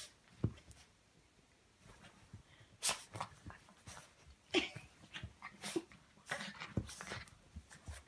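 Yorkshire terrier rubbing and squirming on a bed comforter to dry itself after a bath: irregular short scuffles of fabric mixed with the dog's snuffling breaths, with a quiet pause of about a second near the start.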